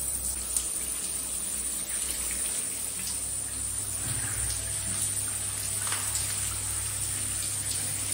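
Steady running and splashing water while a wet golden retriever puppy is washed in a shower, with a few faint small knocks.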